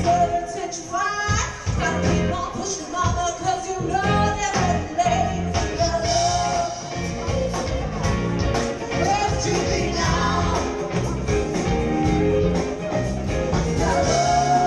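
Live band playing a song with a lead singer, heard from the audience in a large room: held sung notes over drums, bass and guitar with a steady beat.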